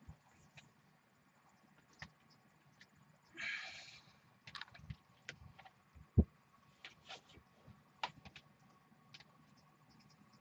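Handling sounds of cable work: scattered small clicks and taps, a short rasp about three and a half seconds in like a nylon zip tie being pulled tight, and a sharp knock about six seconds in.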